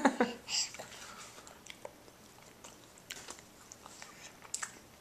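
A baby mouthing and chewing a piece of challah: soft, scattered wet mouth clicks and smacks, with a short breathy baby sound at the very start.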